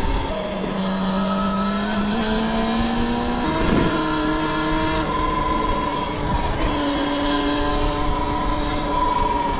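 Talaria XXX electric dirt bike's motor whining while riding, its pitch climbing slowly over the first three seconds, stepping up, then easing lower as speed changes, over a low rumble.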